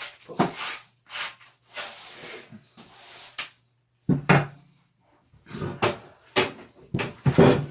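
Wooden boards and offcuts being handled, giving a series of irregular knocks and scrapes.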